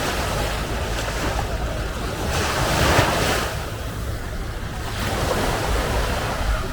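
Ocean waves breaking and washing ashore, one surge swelling about two and a half seconds in and another near the end, with wind buffeting the microphone.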